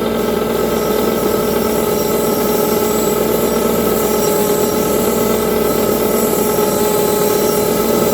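Bench grinder motor running steadily with a constant hum, its wire brush wheel hissing as it scrubs rust off a cast iron piece.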